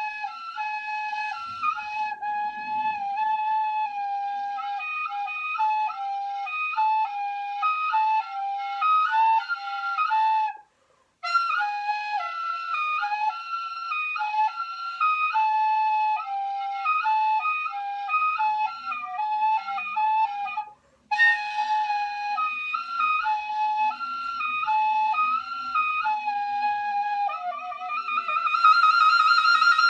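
Recorder played by a beginner: a melody of short, stepwise notes, broken by two brief pauses for breath about 11 and 21 seconds in. Near the end it jumps to a loud, high, wavering note.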